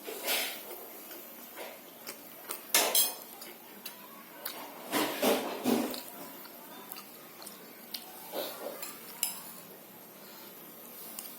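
Spoon clinking and scraping against a plate and bowl while eating a meal of rice and soup, in short scattered clusters with quiet pauses between.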